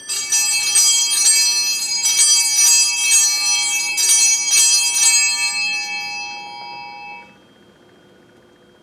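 Altar bells, a cluster of small bells on one handle, shaken again and again for about five seconds, then left to ring on and fade out by about seven seconds in. They mark the elevation of the chalice at the consecration.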